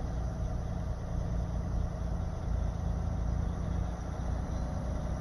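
Car's engine and road noise heard from inside the cabin while driving, a steady low rumble.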